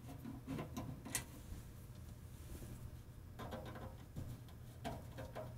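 Faint, scattered clicks and light scrapes of a flathead screwdriver working the screws out of a vintage radio tuner's metal front panel, with small clusters of clicks past the middle and near the end.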